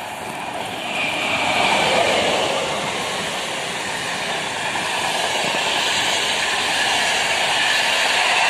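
Container freight train's wagons rolling past: a steady rushing noise of wheels on rail that grows louder about a second in and stays loud.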